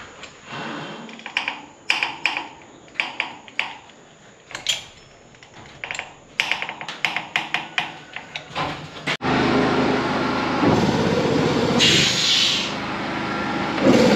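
Irregular clicks and knocks for about nine seconds. Then, after a sudden cut, a portable air compressor runs with a loud, steady, throbbing noise. It is powered by a generator that can't run it properly.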